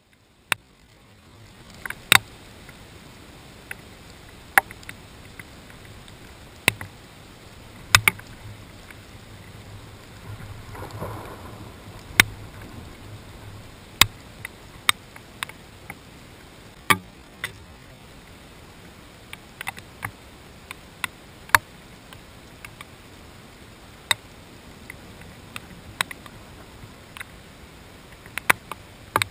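Raindrops striking the GoPro's housing as sharp, irregular clicks, one or two a second, over a steady hiss of rain and wind. A faint low rumble swells about ten seconds in.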